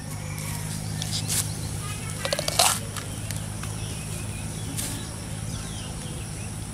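A green coconut being pried apart with a knife: short cracking and tearing sounds as the husk splits. The loudest crack comes a little past two and a half seconds in, and a steady low hum runs underneath.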